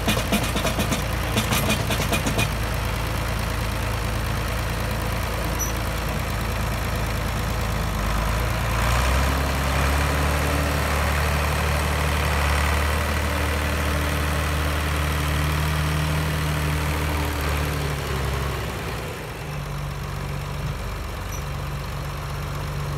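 Zetor 12045 tractor's diesel engine running, with a run of sharp knocks and clatter in the first couple of seconds as the front-loader bucket tips manure into the trailer. About nine seconds in the engine speeds up and holds there for some ten seconds while the tractor works the loader, then drops back to a lower speed.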